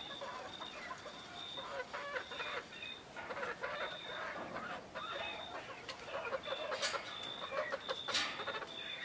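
Flock of pearl-grey Italian (Leghorn-type) chickens clucking softly and irregularly as they settle to roost on a perch, with a couple of louder sharp sounds in the last few seconds.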